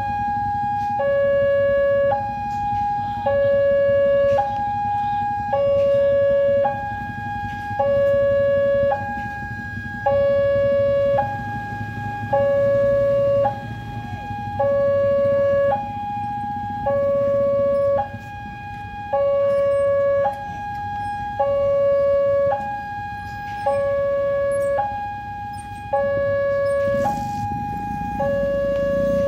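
Railway level-crossing warning alarm sounding while the barrier is down for an approaching train: two electronic tones alternating high and low, each held about two-thirds of a second, repeating steadily. A low rumble of engines from the waiting traffic runs underneath.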